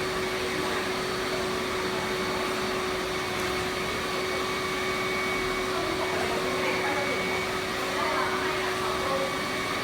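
HYLA water-filter vacuum cleaner running steadily: an even rush of air with a steady motor whine.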